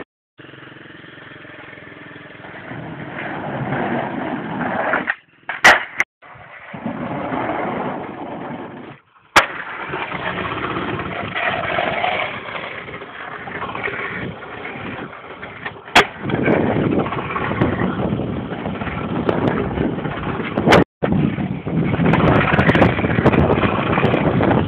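Skateboard wheels rolling on rough asphalt, a steady grinding noise that swells and fades. It is broken by several sudden cuts and a few sharp clicks.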